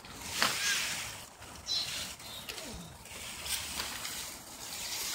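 Dry fallen leaves rustling and crackling in short irregular bursts as a toddler scrapes a plastic toy rake through them.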